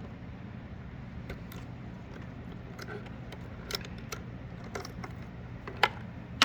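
Electrical connectors on a Subaru fuel pump hanger being unplugged: a scatter of small plastic clicks and rattles, the sharpest near the end, over a low steady hum.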